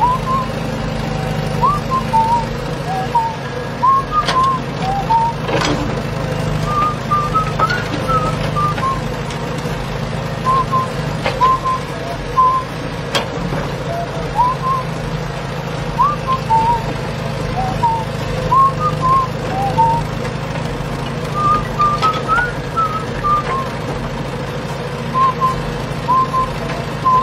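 A whistled tune of short chirping notes, repeated in phrases, over a steady low engine-like hum, with a few sharp clicks.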